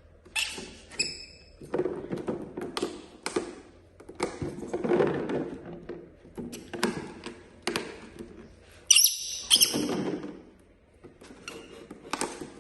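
A run of knocks and thuds, like objects being handled and set down, with short high squeaks about a second in and again around nine seconds in.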